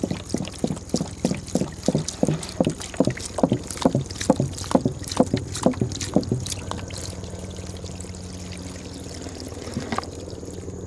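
Water glugging out of a plastic gallon jug tipped over to empty it, about three glugs a second. About six seconds in it eases to a quieter, steady pour.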